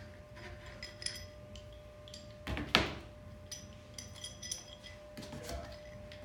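Hard plastic holster and mount parts and small metal screws handled on a tabletop: scattered light clicks and taps, with one louder knock a little under three seconds in.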